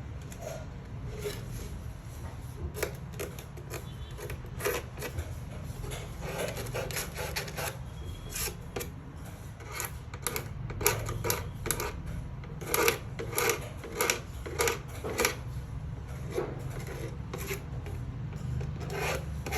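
Short scraping or rubbing strokes, irregular, about one or two a second, louder and more frequent from about halfway through, over a steady low hum.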